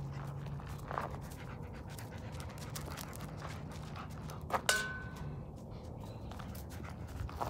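German Shepherd dog panting. About halfway through comes one sharp click that rings briefly.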